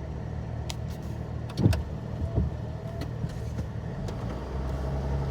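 Vehicle engine and road noise heard from inside the cab while driving: a steady low hum, with a short sharp sound about a second and a half in.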